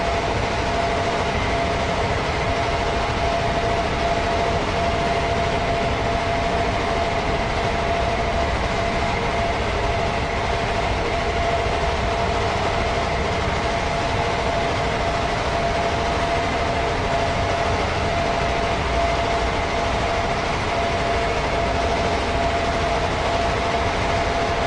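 A steady, unbroken mechanical running noise with a few faint steady hums in it, holding an even level throughout.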